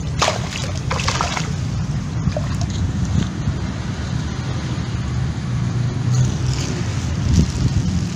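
A steady low rumble throughout. About a second in, the landing net's mesh and frame rustle against the grass.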